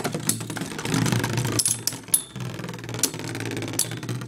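Two metal Beyblade spinning tops whirring in a plastic stadium, with sharp clacks as they collide several times, the loudest a little past the middle.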